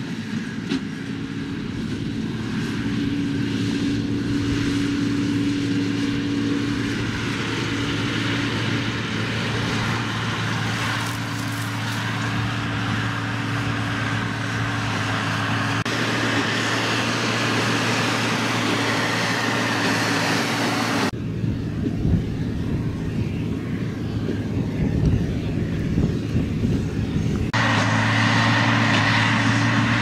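New Holland TM165 tractor's six-cylinder diesel running steadily under load as it pulls a New Holland BigBaler 1290 big square baler through wheat straw, with the baler's machinery working along. The sound shifts abruptly a few times, and there is a rumblier stretch with some irregular knocks in the later part.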